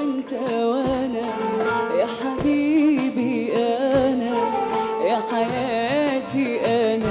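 A woman singing a classical Arabic song live, with a traditional Arabic ensemble: qanun and hand percussion. The melody winds and ornaments, with occasional drum strikes.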